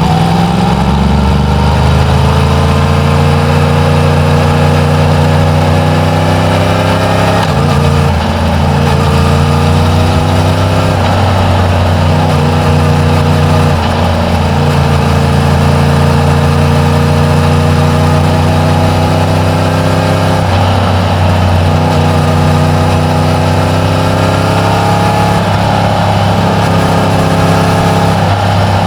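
Yamaha MT-10's crossplane inline-four engine on its stock exhaust, ridden in traffic. The revs climb gradually and then drop back, about five times, as the bike pulls and shifts or rolls off the throttle.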